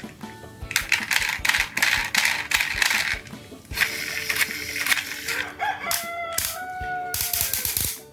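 Rapid clicking and clattering of hard plastic toy vehicles, then a rooster crowing for about two seconds near the end.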